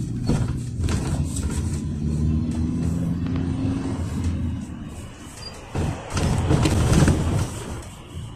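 Cabin noise inside a moving GAZelle Next minibus: its Evotech engine running steadily with road noise, then louder rattling and rumble from about six seconds in.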